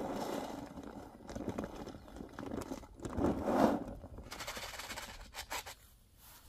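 Dry pet food being poured from a plastic bag into a food bowl on the ground: bag rustling and scraping, a louder rustle about three and a half seconds in, then quick crisp rattles of kibble.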